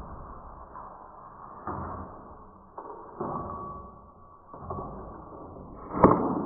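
A few soft knocks and thumps, then one sharp, loud impact about six seconds in.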